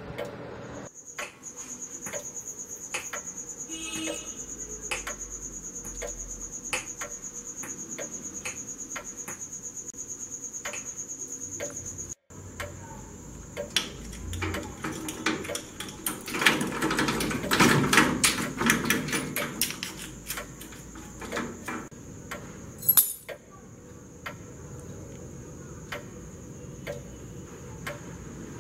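Steady clock-like ticking under a high, steady tone. Past the middle, a padlock and keys rattle and clank against a metal grille door, with one sharp metallic knock a few seconds later.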